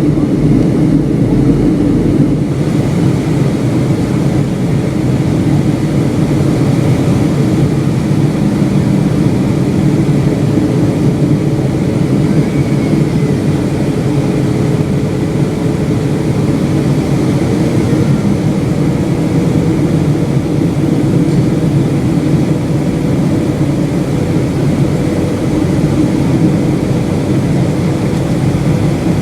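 Cabin noise inside a Boeing 757-200 airliner in descent: a steady, unbroken roar of engines and rushing air, with a faint steady hum above it.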